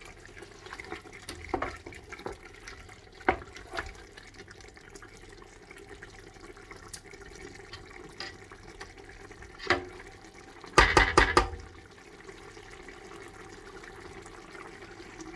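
Kitchen sounds: a steady, soft watery noise with a few light clicks, and a short burst of loud knocks about eleven seconds in.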